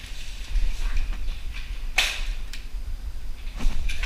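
Footsteps and gear rustling as a player moves through a doorway onto a gritty floor, under a steady low rumble of handling noise on the head-mounted camera, with one sharp click about two seconds in.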